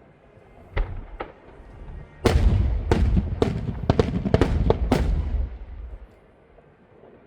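Fireworks: two sharp bangs about a second in, then a rapid volley of loud shell bursts for about three seconds, dying away to a low rumble.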